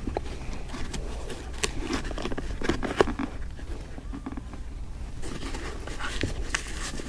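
Handling noise as plastic boot-dryer heads are pushed and fitted into the tops of wet boots: scattered clicks and knocks of plastic, with cords and laces rustling. The sharpest click comes about three seconds in. A steady low hum runs underneath.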